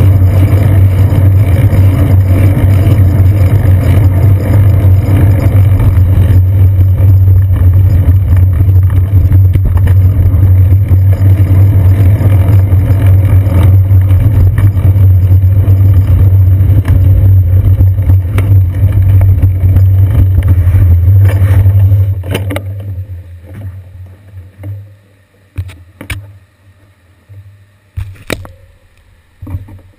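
Steady low rumble of riding noise, wind and road vibration, picked up by a camera mounted on a bicycle's seat post as it rolls over wet city streets. About 22 seconds in the rumble dies away as the bike stops, leaving a few scattered knocks and clicks.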